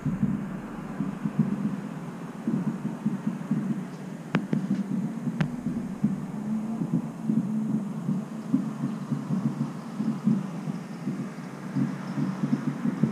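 Wind buffeting the microphone: a low, irregular, fluttering rumble, with two short clicks about four and five seconds in.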